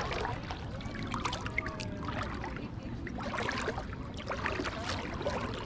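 Shallow seawater lapping and splashing close to the microphone in irregular small splashes, over a steady low rumble.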